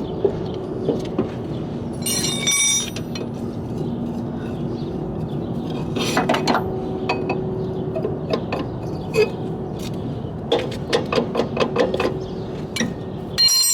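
Metal drum-brake parts clinking and rattling as they are handled, with one ringing metallic clang early on and two clusters of sharp clicks later, over a steady low hum.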